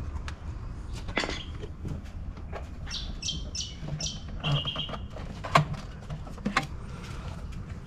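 Clicks and knocks of hands working at the plastic cassette-toilet compartment in a caravan's side hatch, with a sharp knock about halfway through and another a second later. A run of four short high chirps comes midway, followed by a brief high squeak.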